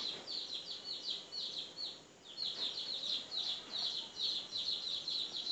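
Bird chirping rapidly and without pause, about four to five short, high, falling chirps a second, with a brief break about two seconds in.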